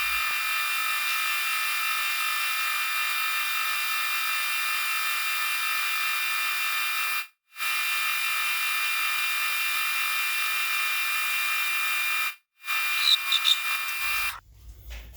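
Metal lathe running steadily with a high whine while turning metal, cutting out abruptly twice for a moment, with a few clicks near the end before it stops.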